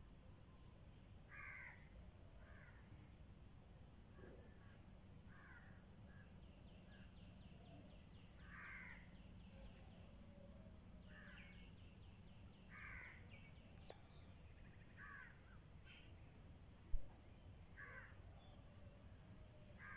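Faint bird calls, short and repeated every second or two, with quicker chattering runs in the middle, over a low steady background hum. A single sharp click near the end.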